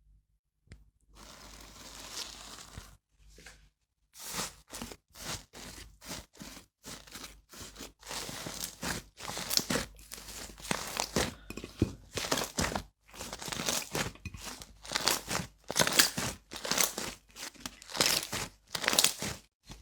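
Hands squeezing and pressing slime: a short soft hiss, then a run of crackling, crunchy squishes about two a second, getting louder toward the end.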